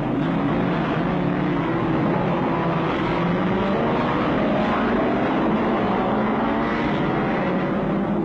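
Engines of a pack of single-seater racing cars revving hard together as the field accelerates away from the start, several engine notes overlapping and rising in pitch.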